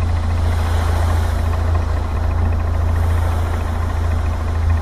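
Boat engine running steadily with a low, even hum, with water rushing between the two hulls.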